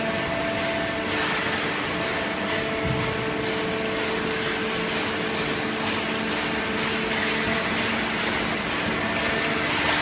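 Automatic horizontal cardboard baler and its chain conveyor running: a steady machine drone with a constant hum of several tones from the hydraulic pump and motors.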